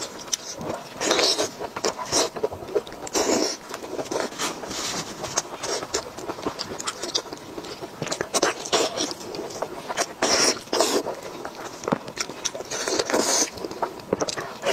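Close-miked wet eating sounds: hands tearing apart sauce-soaked poultry, with lip smacks and chewing. Many small clicks, with several louder bursts of tearing and slurping.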